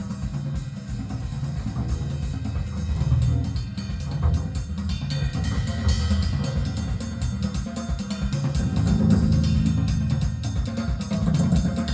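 Music with a steady drum-kit beat, bass drum and snare, over a strong bass line.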